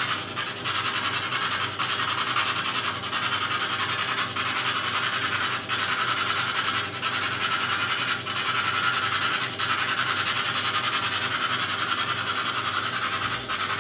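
Steady radio static hiss from a handheld spirit box sweeping through radio channels, with a faint click a little more than once a second as it steps between stations.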